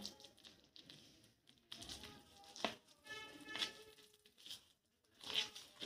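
A spoon stirring gram flour, curd and chopped coriander in a plastic bowl: faint soft scraping, with one light tap about two and a half seconds in. A faint pitched sound is heard briefly a little past the middle.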